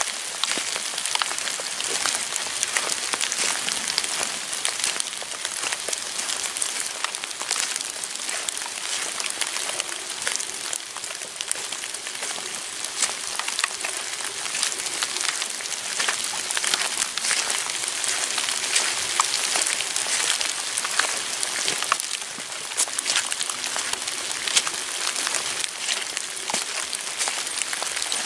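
Steady rain falling in woodland, with many separate sharp drop taps on wet leaves.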